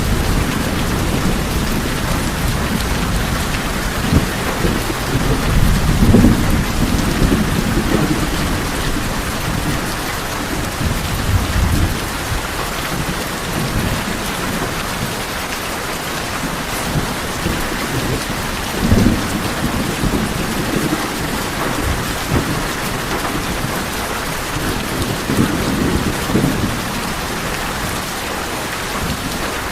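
Steady rain on tin roofs, with low thunder rumbling in several separate rolls.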